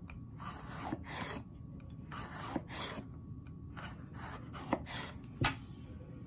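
A kitchen knife slicing an orange bell pepper into thin rings on a cutting board: a series of short crisp cuts, several ending in a light tap of the blade on the board, about one every half second to second.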